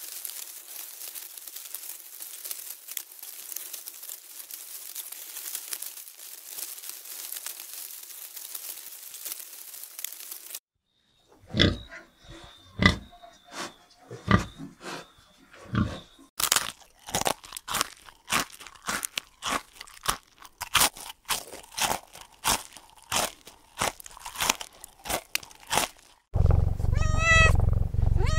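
Several animal clips in a row. First a steady crackling hiss, then, after a moment of silence, piglets heard as a long run of sharp crunches and clicks. Near the end a domestic cat meows twice.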